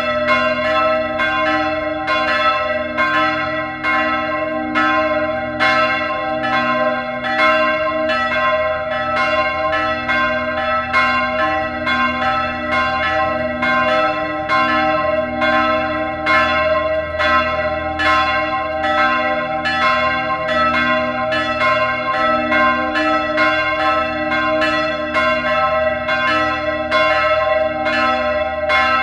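Neskirkja's church bells ringing together, struck about twice a second, their tones sounding on and overlapping between strokes.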